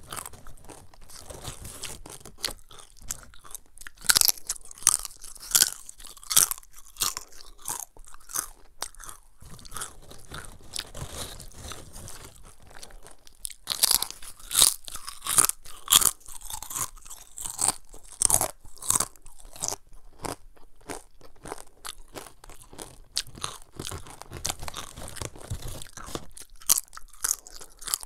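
Close-miked crunching and chewing of thin fried cassava chips. Sharp, loud crunches come as chips are bitten in two runs, about four seconds in and again about fourteen seconds in, with quieter chewing between.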